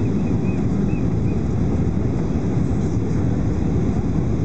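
Steady low roar of a Boeing 737-800's CFM56 jet engines and airflow, heard inside the passenger cabin during the approach to landing.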